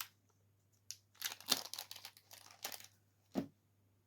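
Packaging crinkling and rustling as it is handled, in several bursts, with a click at the start and a single short knock a little before the end.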